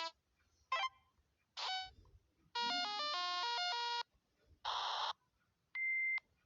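A string of short electronic sound-effect clips played one after another: a click, two brief chime-like blips, a quick run of stepping electronic beep notes like a ringtone, a burst of hiss, and a single steady high beep near the end.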